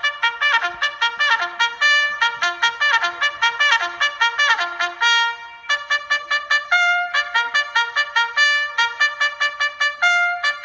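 A trumpet playing a fast, bright tune of quick short notes, with a brief break about five and a half seconds in, sounding as a wake-up alarm.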